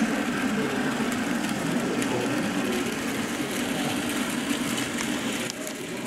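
Steady diesel-engine drone of a model BR Class 14 diesel locomotive as it runs along the track. It gets a little quieter about five and a half seconds in.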